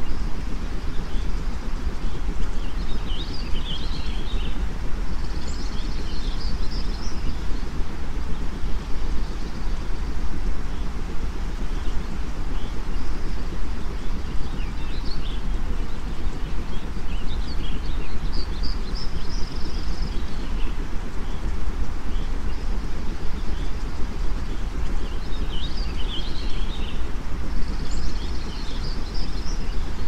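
A steady bed of white noise, heaviest in the low end, with small birds chirping in short clusters every few seconds over it.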